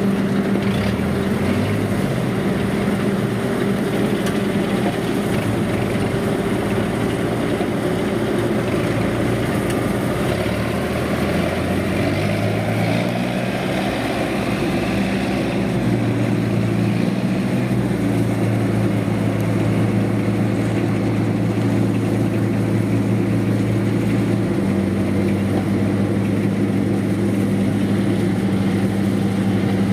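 Engine of a farmer-built rice harvester with a Yanmar 4T100 engine running steadily under load, its pitch shifting a little a few times partway through.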